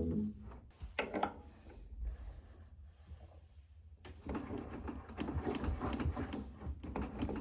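Hands working on the opened back of a front-loading washer: two sharp knocks about a second in, then from about four seconds in a steady run of small clicks, scraping and rattling of metal and rubber parts being handled.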